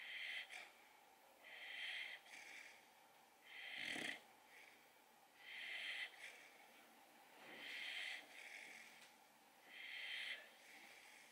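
Brindle boxer puppy snoring softly in its sleep, a wheezy nasal breath about every two seconds; one breath about four seconds in is louder.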